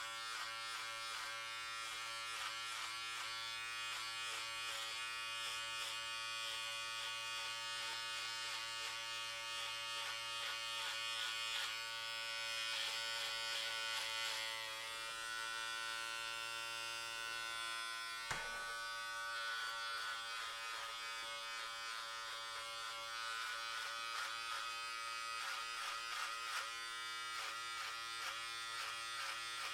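Electric hair clippers buzzing steadily while cutting hair, the pitch of the buzz shifting now and then. A single sharp click comes about eighteen seconds in.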